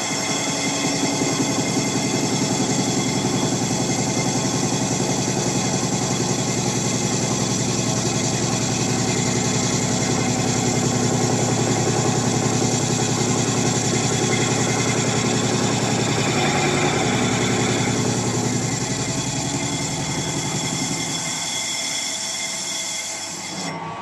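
Metal lathe running steadily as a cutting tool turns the rim of a cast final drive centre for a model traction engine, a continuous machine sound with several steady tones. The sound thins out near the end.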